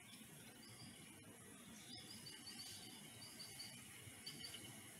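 Faint natural ambience with a small bird chirping in short runs of quick, high notes, four times. No peacock call is heard.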